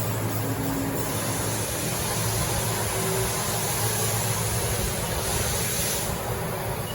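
2014 Haas VF-5/40 vertical machining center running steadily with a low hum, and a high hiss that comes in about a second in and drops away about six seconds in.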